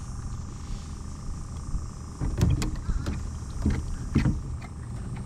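Steady hum of an electric trolling motor, with several sudden splashes about halfway through as a hooked fish thrashes at the surface beside the boat.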